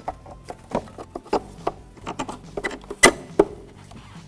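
Metal battery hold-down bracket being slid back into place over a car battery, with scattered clicks and knocks as it is handled, the sharpest about three seconds in.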